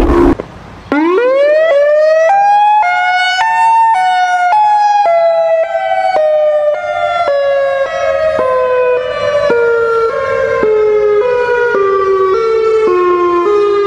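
A siren winding up from a low pitch to its peak within about two seconds, then slowly falling in pitch in small steps, two close tones sounding together. It cuts off abruptly at the end.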